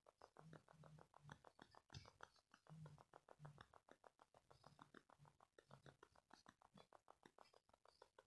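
Near silence: room tone with a faint, even, rapid ticking, about seven ticks a second.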